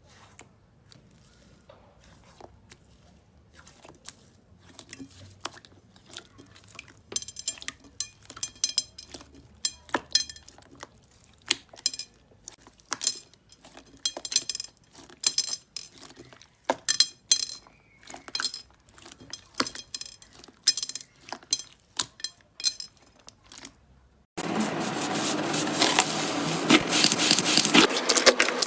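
Slime being squeezed and pressed by hand, giving sharp clicks and crackles that come thicker and louder after about seven seconds. Near the end a denser, louder crackling takes over.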